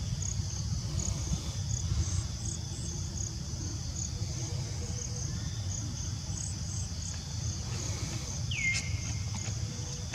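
Insects chirping steadily, a high-pitched pulsing over a low rumble, with one short call near the end that drops sharply in pitch and then holds briefly.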